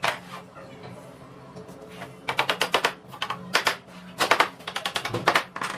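Rapid runs of sharp mechanical clicks, about ten a second, in several short bursts with brief pauses between them, over a steady low hum.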